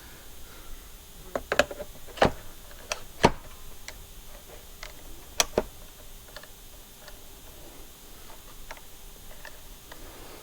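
Sharp clicks and knocks of tools and parts being handled while working on a brushcutter, a cluster of loud ones in the first half, then fainter scattered ticks.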